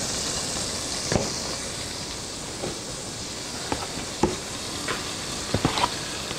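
Hot oil sizzling steadily in a pot between batches of browning chicken, with a few sharp knocks of metal tongs against the pot and bowl, about a second in, past the middle, and a quick cluster near the end.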